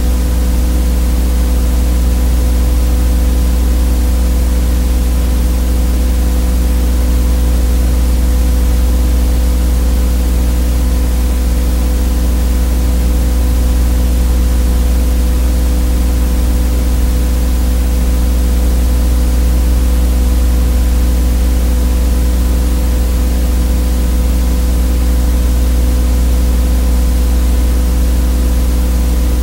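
Loud, steady electrical buzz: a low hum with higher overtones over a bed of hiss. It is unwanted noise on the soundtrack of a silent 8mm film transfer, and it does not change at all.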